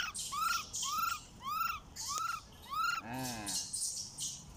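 A macaque calling over and over: about six short arched calls, each rising then falling in pitch, roughly two a second. They are followed about three seconds in by one longer, lower call.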